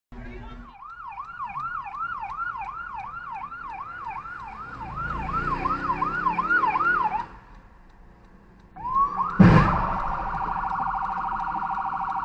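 Fire rescue truck siren sweeping up and down about two and a half times a second, then cutting out. As it starts again, a loud crash sounds as the truck hits a car, followed by a rapid warbling siren.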